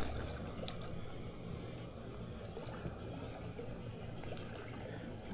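Faint steady trickle of water over a low, even hum.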